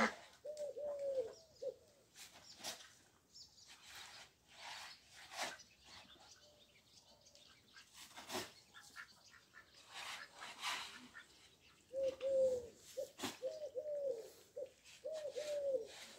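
A pigeon cooing in short series of rising-and-falling notes, once just after the start and again in several groups from about twelve seconds on. Faint scattered clicks and knocks fill the gaps between.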